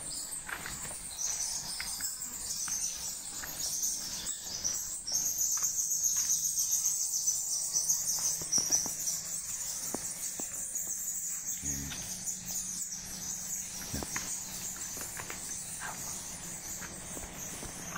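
Insects chirping in a steady high-pitched drone that grows louder for a few seconds in the middle, with scattered light footsteps on the dirt floor.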